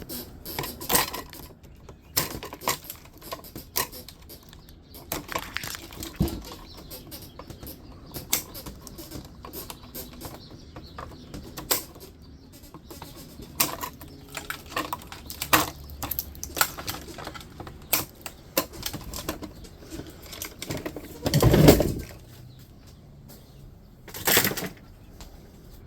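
Irregular clicks, snips and light clatter of hand tools and small metal parts as a dehumidifier is taken apart by hand. A louder thud comes about three-quarters of the way through, and a sharp knock follows near the end.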